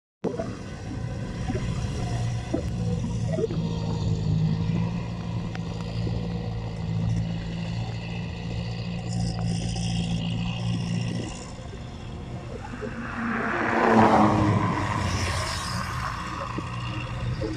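Massey Ferguson 185 tractor's four-cylinder diesel engine running steadily while it works a flooded paddy field. The hum stops about two-thirds of the way in, and a louder rush of noise swells and fades near the end.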